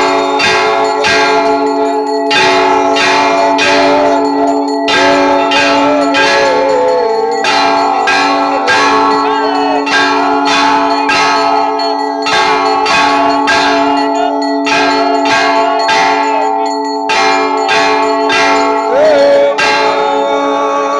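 Metal temple bells struck rapidly and continuously for an aarti, a few strikes a second, the strikes running together into a steady clanging ring.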